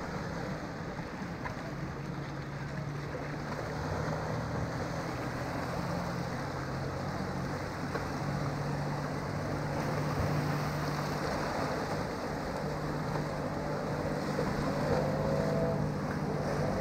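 Small waves washing over lava rocks at the foot of a sea wall, an even wash of noise, under a steady low engine hum that grows a little louder near the end.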